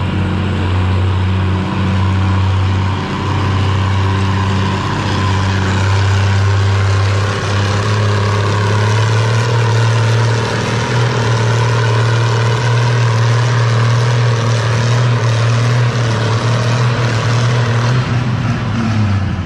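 Antique farm tractor engine running steadily at high throttle while pulling a weight-transfer sled, its pitch stepping slightly higher about halfway through.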